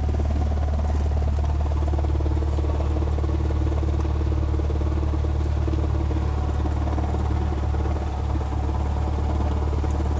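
Light single-engine airplane's piston engine and propeller running steadily at a constant pitch, heard from inside the cockpit.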